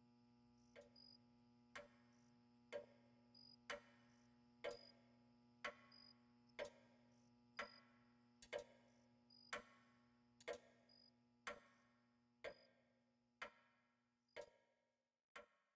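Slow, even clock-like ticking, about one tick a second, each tick with a short ringing tail. Under it runs a faint steady hum that cuts off near the end.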